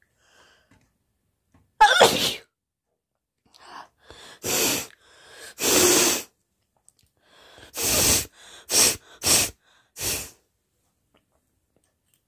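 A woman sneezing and blowing her nose, a run of about seven loud, short bursts: one sneeze with a falling voice about two seconds in, then more bursts, the last three quick ones close together near the end.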